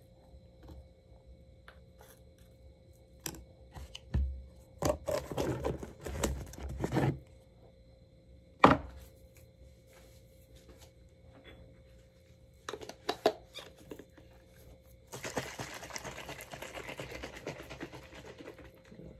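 Baby bottle of formula being made up: scattered clicks, knocks and rustles of handling the bottle and formula can, with one sharp loud click about halfway through. Near the end, about four seconds of continuous rapid rattling noise as the bottle is shaken to mix the formula.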